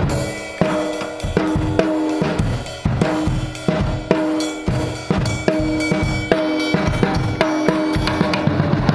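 Handmade tajon box drum kit played with drumsticks in a steady beat: snare and small tom heads on top of the box, a kick, and a cymbal, the drum strokes ringing with a clear pitch.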